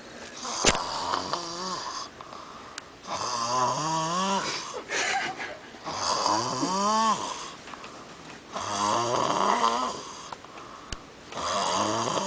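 A person snoring: four long snoring breaths a few seconds apart, each rising in pitch as it goes, with a fainter snore and a sharp click near the start.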